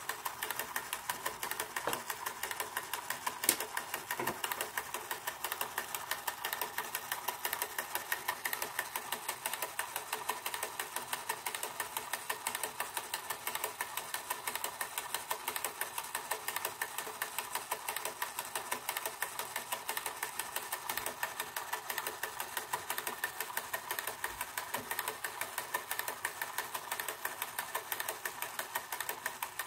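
Hasler Bern RT9 railway tachograph running, its mechanism giving a rapid, even mechanical ticking, with one sharper click a few seconds in.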